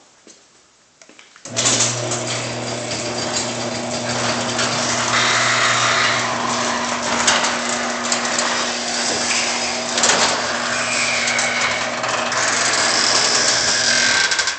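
A small engine or motor running steadily with a low hum. It starts suddenly about a second and a half in and stops just before the end.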